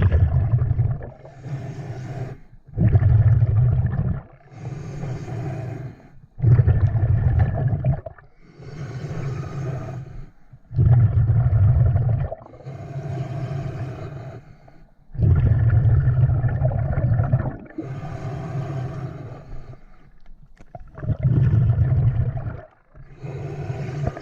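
Scuba diver breathing underwater through a regulator: a hissing inhale, then a loud low rumble of exhaled bubbles, in a steady cycle about every four seconds.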